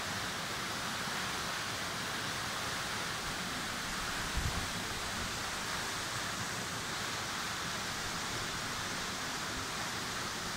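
Waterfall's water falling onto rock, a steady rushing hiss. A brief low thump comes about four and a half seconds in.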